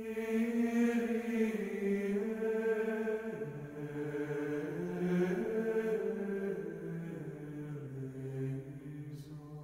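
Slow sung chant: voices hold long notes in two or more parts, stepping to a new pitch every second or two, with a new phrase starting at once.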